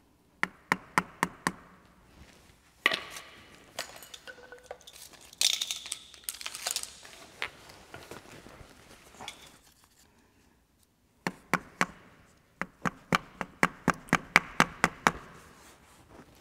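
A hammer tapping on a roll of tape used as a driver, seating a new transmission-side crankshaft oil seal into the engine block. Quick series of light knocks, a short burst at the start and a longer run of about a dozen taps near the end, with some handling noise between.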